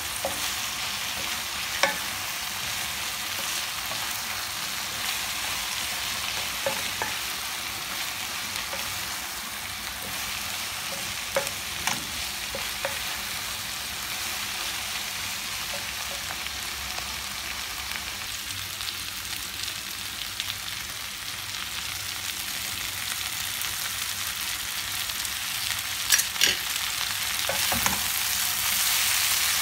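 Mixed vegetables (cauliflower, broccoli, green beans and onion) sizzling in a hot non-stick pan as they are stirred and tossed with a wooden spatula, a steady frying hiss with a few sharp knocks of the spatula against the pan. It gets louder near the end.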